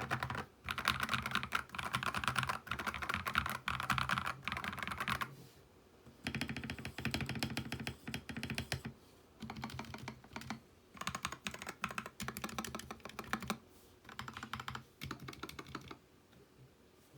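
Typing on a Royal Kludge RK84 mechanical keyboard fitted with Akko Radiant Red linear switches and ceramic keycaps: rapid runs of keystrokes in bursts with short pauses between them, stopping about a second before the end.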